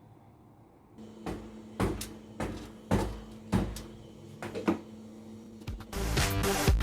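Background music starting up: a held low note with a regular knocking beat about twice a second, filling out into a full electronic track near the end.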